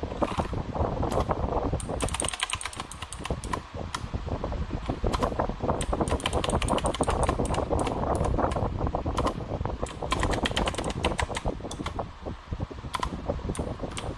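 Fast, continuous typing on an Armaggeddon MKA-7C mechanical keyboard with blue switches: a dense run of sharp, clicky keystrokes, with a steady low hum underneath.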